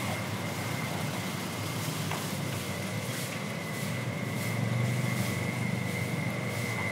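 Low engine rumble of a motor vehicle on the street, swelling about two-thirds of the way through, over a steady thin high-pitched tone.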